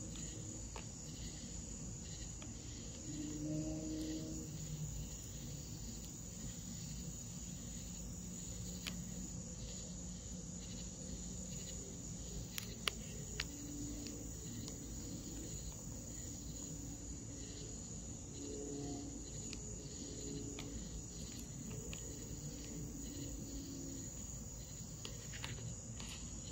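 A steady, high-pitched insect trill runs throughout, with faint low hums coming and going beneath it and a couple of sharp clicks about halfway through.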